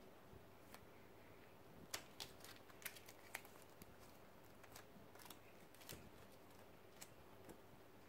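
Faint, irregular clicks and taps of sleeved trading cards being handled, starting about two seconds in: plastic card sleeves flicking against each other and cards set down on a wooden table.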